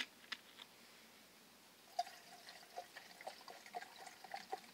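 A drink being poured into a cup: a light click, then from about two seconds in, faint gurgling and trickling of liquid.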